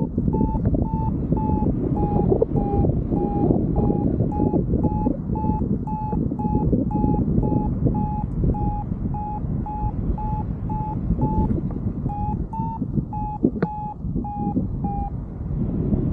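Paragliding variometer beeping in a steady run of short beeps, the sign that the glider is climbing in rising air. The beeps stop shortly before the end. Heavy wind rush on the microphone underneath.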